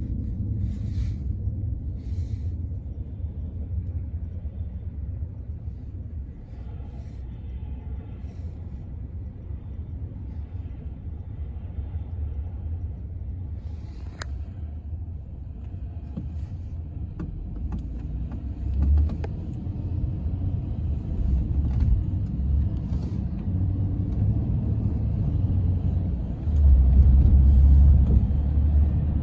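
Low rumble of a car's engine and tyres heard from inside the car as it creeps in slow traffic. It grows louder near the end as the car speeds up.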